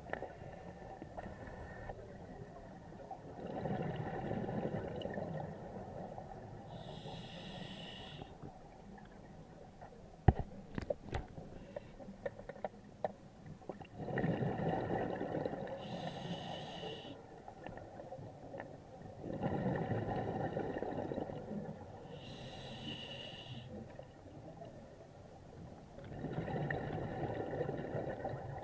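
Scuba diver breathing through an open-circuit regulator underwater: slow breaths several seconds apart, each a low rumbling bubble exhalation alternating with a short hiss of inhalation. A few sharp clicks of equipment near the middle.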